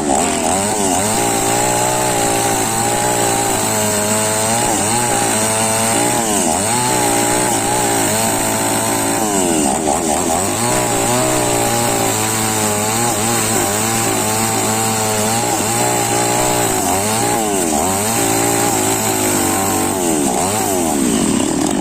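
Two-stroke chainsaw running continuously, its engine pitch repeatedly rising and falling as it revs up and drops under load.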